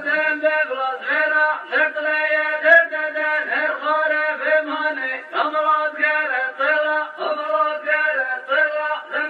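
A man's voice singing a melodic chant with no instruments, the line moving on steadily without pause.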